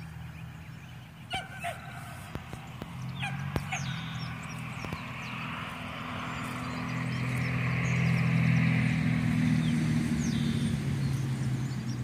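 Birds calling: many short chirps, with a fuller chorus of calls swelling to its loudest about eight seconds in, over a steady low hum.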